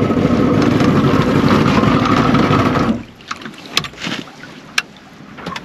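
1957 Kiekhaefer Mercury MK75 six-cylinder two-stroke outboard running steadily, then cutting off abruptly about three seconds in. What remains is much quieter, with a few sharp clicks.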